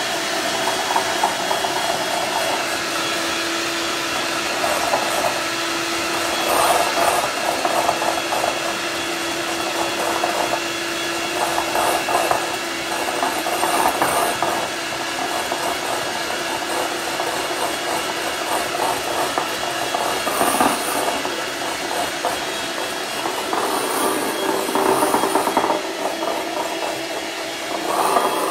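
Electric hand mixer running steadily, its twin beaters whipping egg whites into stiff foam in a glass bowl. The noise gets louder in several short stretches.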